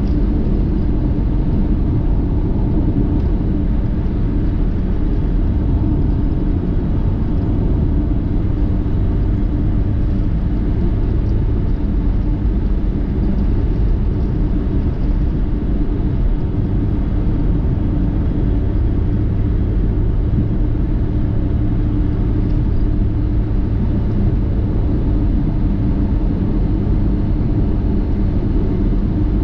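Car driving at a steady speed: continuous engine and road rumble with a low, even drone that does not change.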